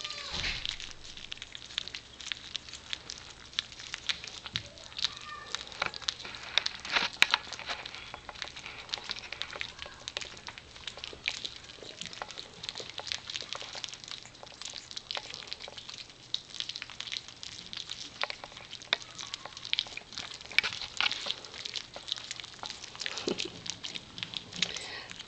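Cocker spaniel puppies lapping and smacking at a plate of wet gruel: a dense, irregular patter of small wet clicks.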